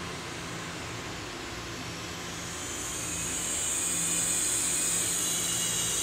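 Electric train noise heard from inside a commuter EMU carriage: a steady low hum, with a rushing hiss that builds from about two and a half seconds in and then holds, as a Taiwan Railway EMU3000 intercity express moves past on the next track.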